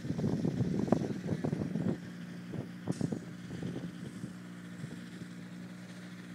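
Wind buffeting the microphone for about the first two seconds, then the steady distant drone of a WT9 Dynamic light aircraft's flat-four engine in flight.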